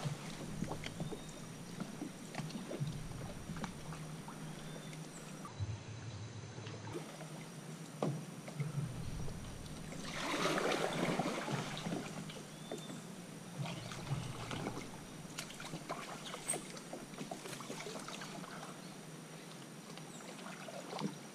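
Paddle strokes of a Hunter 285 fishing kayak moving through shallow floodwater between trees: soft dips and splashes with occasional light knocks, and a louder stretch of splashing about ten seconds in.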